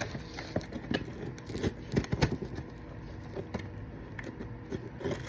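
Scattered clicks, taps and knocks as scissors and a cardboard package are handled, busiest in the first two seconds or so, then quieter.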